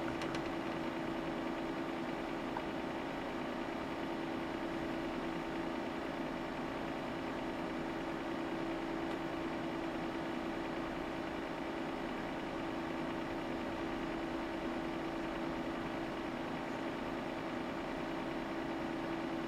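Steady hum of bench test equipment running, a constant low tone over an even fan-like hiss.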